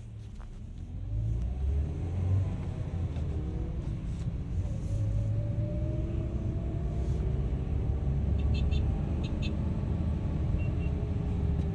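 Great Wall Florid 1.5 VVT heard from inside the cabin while driving: a steady low rumble with a whine that slowly rises and falls in pitch. This is a noise that grows as the car gets faster, which the mechanic puts down to either the gearbox or the power-steering pump running low on oil.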